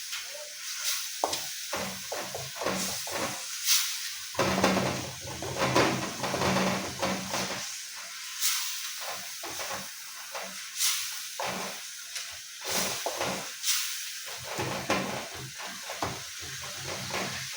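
Onion and tomato sauce for a fish dish sizzling in a pan, with a spoon stirring and scraping against the pan over and over.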